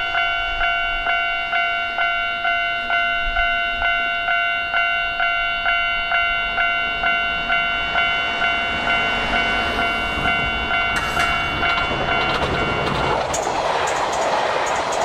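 Japanese level-crossing warning bell ringing, a repeating electronic clang about twice a second. Near the end the bell is drowned out as a JR 381 series Yakumo electric train rushes past close by, its wheels clicking over the rail joints.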